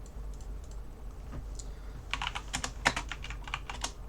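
Typing on a computer keyboard: a quick run of about a dozen keystrokes starting about halfway in and lasting under two seconds.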